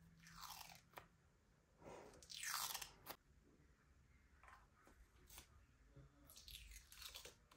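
Clear adhesive tattoo film being peeled off the skin and crinkled in the fingers. There are three crackling peels, each falling in pitch, and the loudest comes about two seconds in. A few light clicks fall between them.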